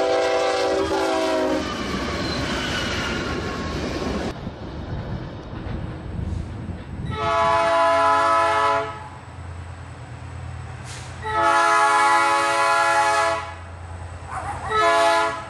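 A diesel freight locomotive's multi-chime air horn blows for a level crossing: two long blasts and then a short one, over the low rumble of the approaching train. At the very start a shorter horn sounds over train rumble before a sudden cut.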